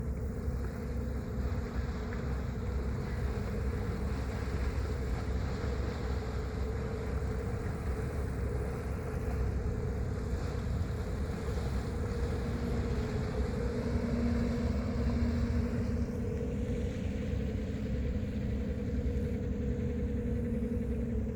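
Ferry's engine running with a steady low rumble and a constant hum.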